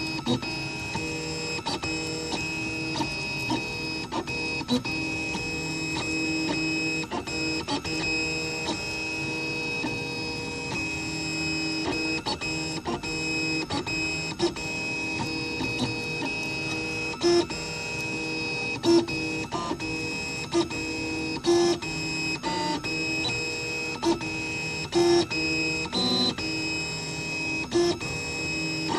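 3D printer's stepper motors running during a print: a steady whine at several fixed pitches with many short clicks. In the second half there are several brief, louder spikes as the head makes quick moves.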